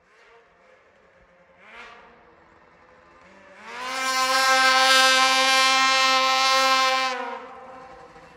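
Ski-Doo 600RS race snowmobile's two-stroke engine at full throttle through its race-can exhaust as the sled accelerates across the snow. Faint at first with a short rev about two seconds in, then a loud, steady, high-pitched wail for about three and a half seconds that drops away quickly near the end.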